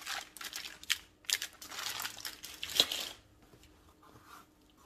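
Bubble wrap and plastic packaging crinkling and rustling as a wrapped chair part is handled, in a run of short bursts that stops about three seconds in.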